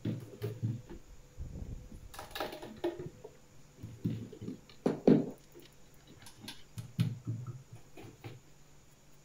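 Irregular clicks, taps and knocks of the fetal Doppler's casing and parts being handled and fitted back together during reassembly, the loudest knock about five seconds in.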